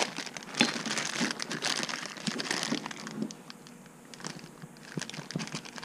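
Thin plastic bag crinkling and rustling as a new pulley wrapped in it is handled, busiest in the first three seconds and sparser after.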